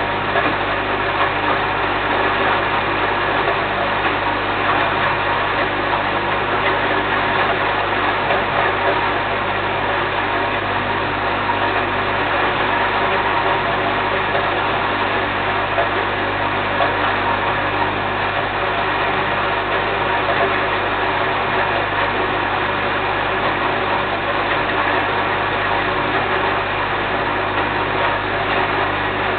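Small electric grain mill running steadily, grinding grain feed as it is fed into the hopper: an even motor hum under a dense grinding rattle that does not change.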